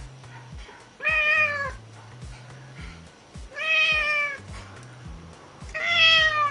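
Domestic cat meowing three times, each meow about two-thirds of a second long and bending slightly down in pitch, spaced a couple of seconds apart.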